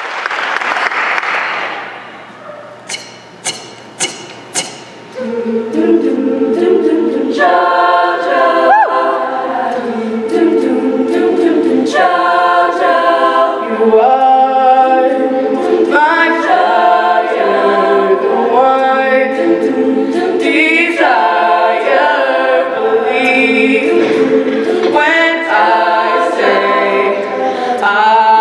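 Applause dying away, then four sharp clicks, then a high school show choir singing a cappella: a held backing chord in the lower voices with a solo voice singing the lead over it.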